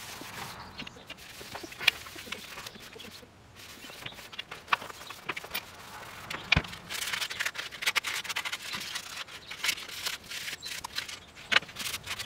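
Motorcycle helmet being handled and wiped down: rubbing and scraping with scattered sharp clicks and knocks from its shell and plastic trim pieces, the rubbing densest in the middle.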